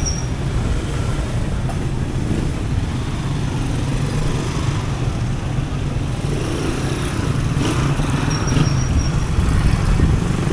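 Street traffic: vehicle engines, including motorcycles, running close by in a steady low rumble, with faint voices in the background.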